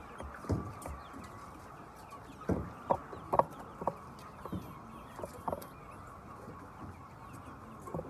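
A large flock of white chickens clucking: a steady din of many birds, with single clucks standing out now and then, the loudest about three and a half seconds in.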